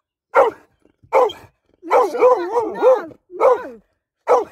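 A dog barking inside a car: two sharp barks, then a drawn-out wavering yowl lasting about a second, then two more barks.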